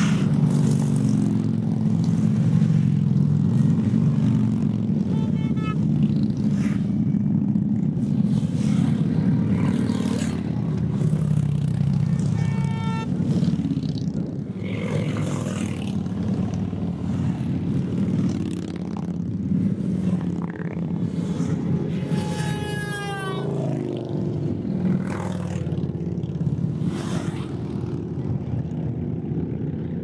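A procession of cruiser motorcycles passing one after another, their engines rumbling steadily with each bike swelling as it goes by, a little quieter toward the end as the column thins. Three brief high-pitched tones sound over it, the last falling in pitch.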